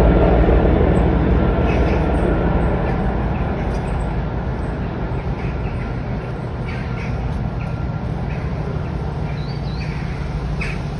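A London Underground Northern Line train passing, its low rumble fading away over the first few seconds and settling to a steady, quieter rumble.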